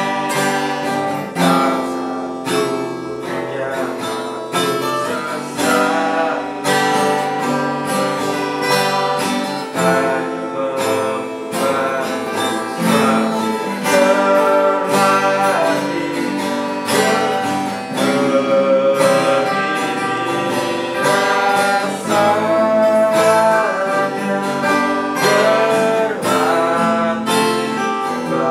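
Two acoustic guitars strummed and picked together in a steady rhythm, with a man's voice singing a melody over them at times.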